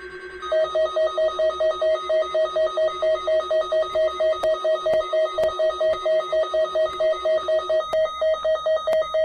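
Weather alert radio's alarm beeping in rapid, even pulses of about four to five a second, set off by the weekly test alert. About half a second in it takes over from a steadier, lower tone, which fades out near the end.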